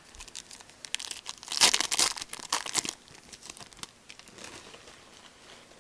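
Wrapper of a 2012-13 Panini Certified hockey card pack being torn open and crinkled by hand, a burst of sharp crackling about a second in that dies down to faint rustles.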